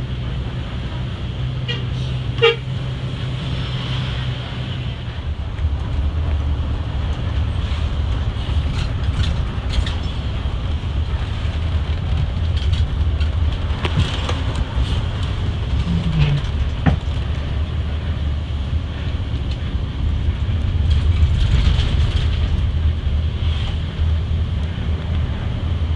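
Steady low drone of a Mercedes-Benz OH 1526 bus's diesel engine and road noise, heard from inside the moving coach, with a short horn toot about two and a half seconds in.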